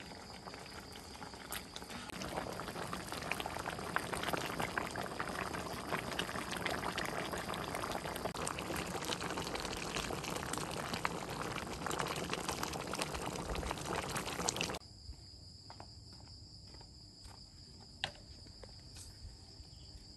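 A large pot of pork rib soup boiling hard, with bubbling and liquid sloshing as it is ladled into a ceramic bowl. This stops abruptly about fifteen seconds in. After that, crickets chirp steadily, with a single light click near the end.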